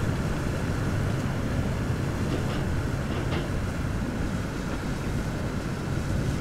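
Marine engine droning steadily as a low hum, under an even rushing noise.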